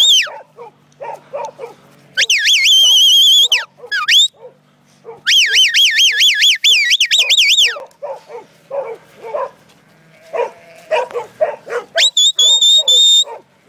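Shepherd's whistled commands to working sheepdogs: several shrill, high whistle blasts, some held or gliding, one long run in the middle warbling rapidly up and down, and a string of short rising notes near the end.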